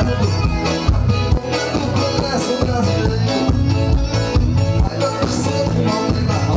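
Forró pé de serra band music playing loud with a steady dance beat.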